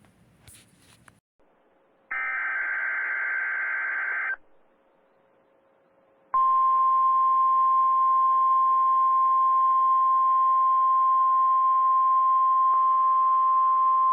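A few clicks, then a buzzy electronic burst about two seconds long, then the NOAA Weather Radio 1050 Hz warning alarm tone. The alarm tone comes on about six seconds in and holds as one steady, loud tone, the signal that sets off weather alert radios.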